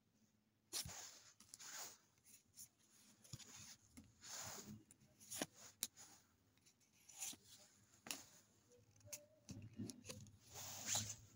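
Pokémon trading cards being handled and shuffled, the cards sliding and flicking against one another in irregular short rustles and clicks.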